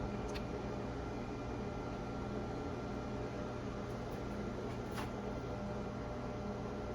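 Steady fan hum and hiss, with two faint clicks, one just after the start and one about five seconds in.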